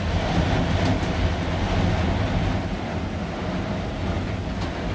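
Heavy downpour: rain pouring in a steady, even rush.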